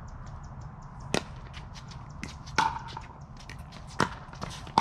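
Pickleball paddles striking the hard plastic ball in a rally: four sharp pocks, roughly a second and a half apart.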